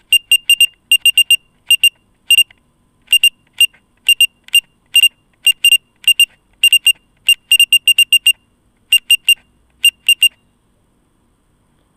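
Loud electronic beeping: short, high, identical beeps in uneven clusters of one to three, stopping about ten seconds in.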